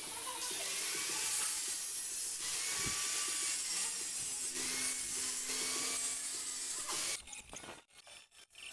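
Angle grinder with a cut-off disc cutting through metal tubing: a steady, harsh grinding hiss whose whine dips and recovers in pitch a few times. It stops about seven seconds in, leaving a few light knocks of metal being handled.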